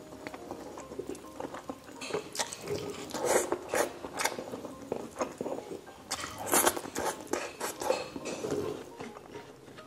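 Close-up eating sounds: wet chewing and lip smacks on saucy pork asado and rice, coming in irregular clusters that are loudest around three to four seconds in and again about six and a half seconds in.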